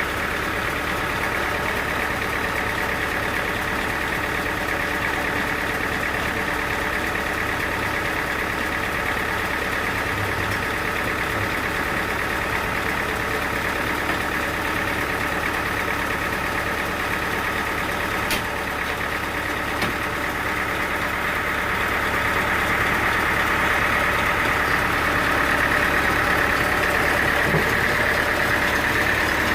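Sawmill machinery running steadily with an engine-like hum, with a single sharp click partway through and a slight rise in loudness during the last third.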